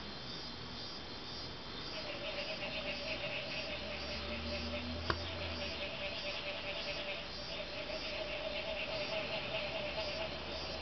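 Night chorus of insects and frogs. A high pulsed chirp repeats steadily, and about two seconds in a faster high trill and a steady lower-pitched call join it. There is one sharp click about halfway through.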